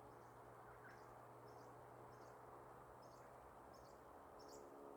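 Near silence: faint outdoor background with a soft high chirp repeating every second or so.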